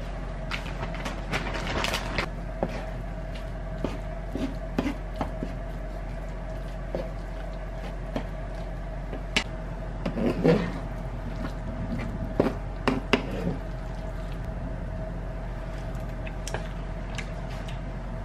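Wooden spatula stirring and scraping thick risotto in a metal frying pan, with scattered soft clicks and scrapes, louder about ten and thirteen seconds in. A steady electrical hum runs underneath.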